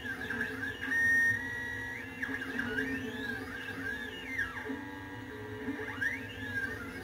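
Stepper motors of a CNC 3040 T-D desktop router whining as the axes move through an air cut, the tool passing through the program without touching material. The whine glides up and down in pitch again and again as the moves speed up and slow down, over a steady hum.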